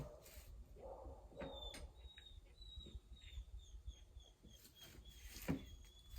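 Faint clicks and taps of an Allen wrench being tried on the truck bed side-rail bolts, with a bird in the background singing a run of short high chirps, about three a second, from about a second and a half in to past halfway.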